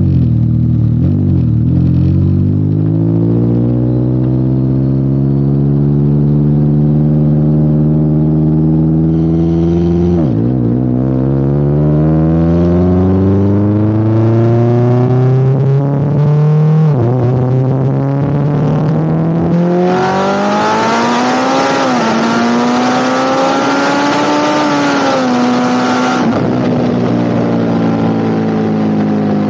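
Mitsubishi Lancer Evolution X's turbocharged four-cylinder engine, big-turbo Stage 3 tune, pulling at full throttle on a 100–200 km/h run: the engine note climbs steadily and drops sharply at gear changes about 10 and 17 seconds in. A loud rushing hiss joins it from about 20 to 26 seconds in, then the engine note eases down near the end as the car comes off the throttle.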